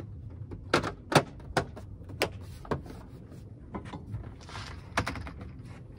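Plastic tailgate trim panel being pressed and snapped into place by hand: a run of sharp, irregular clicks and knocks as its clips and edges seat around the lip of the trim.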